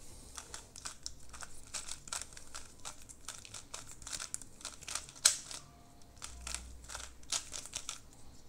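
GAN 356i magnetic smart speedcube being turned through a scramble: quick, irregular flurries of plastic clicks and clacks as its layers turn, with one louder clack about five seconds in.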